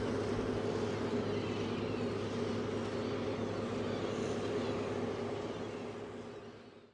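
Heavy diesel engine of Caterpillar landfill machinery running steadily, a low, even engine hum that fades out near the end.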